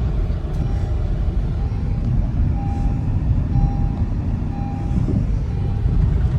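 Steady, loud low rumble with a short electronic beep repeating about once a second.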